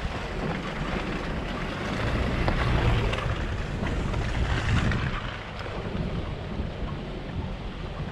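Wind buffeting the microphone: a rough, low rumbling noise that swells in gusts, loudest a couple of seconds in.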